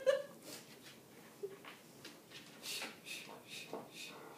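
Short, rhythmic breath puffs, about two or three a second, keeping time with the arm pumps of a Pilates hundred, stronger in the second half, after a brief voiced sound right at the start.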